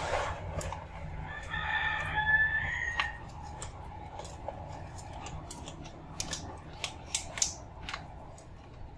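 A rooster crowing once, a single drawn-out call of about two seconds. Later come a few short crinkles and clicks from a plastic cat food bag being handled.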